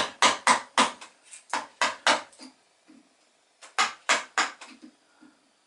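A wooden mallet striking the handle of a wood-carving gouge in a series of quick knocks, about three or four a second, as the gouge cuts into a wooden hull slice. The blows stop for about a second midway, then a few more follow.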